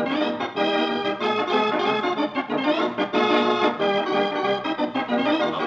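Organ music, chords of several held notes changing every fraction of a second, playing the closing theme after a radio serial's sponsor sign-off.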